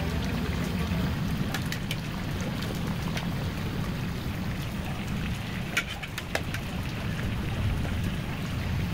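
Pork chunks frying in a large pot of hot lard: a steady sizzle and bubbling, with a few sharp pops or clicks.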